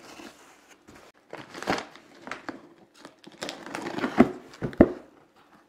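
Cardboard shipping box being cut open with a Cold Steel Holdout folding knife: the blade slicing packing tape and cardboard, with plastic and cardboard crinkling and rustling. Two sharp knocks about four and five seconds in.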